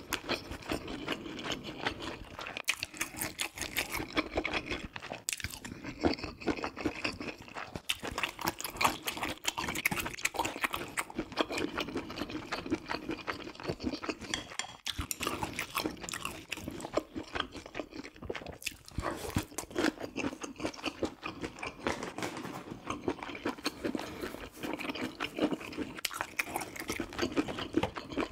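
A person chewing food close to the microphone: a dense, unbroken run of wet mouth clicks and chewing.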